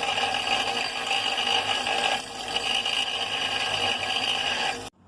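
A motor-driven power tool running steadily, with a brief dip about two seconds in; the sound cuts off suddenly just before the end.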